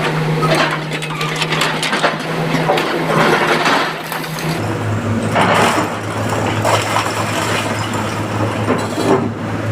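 Excavator diesel engine running with a steady hum that drops to a lower pitch about four and a half seconds in, under a dense crunching and rattling of rock and stone.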